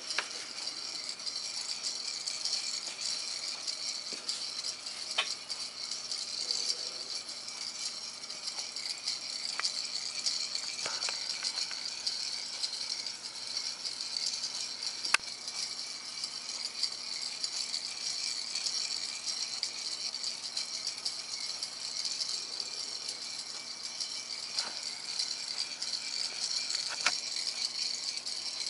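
Electric-driven orrery model's gear train running: a steady high metallic rattle of small gears meshing as the Earth-Moon arm turns around the Sun, with a few sharp clicks now and then, the loudest about halfway through.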